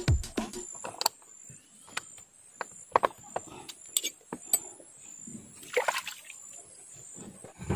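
A hand splashing river water against an outboard motor's lower unit, a short splash about six seconds in, among a few faint scattered clicks and small water sounds.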